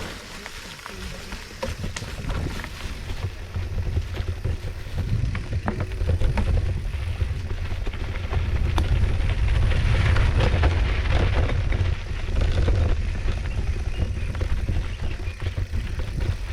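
Mountain bike riding noise on a dirt trail: low wind rumble on the microphone with scattered clicks and rattles from the bike. It grows louder around a third of the way in and eases near the end.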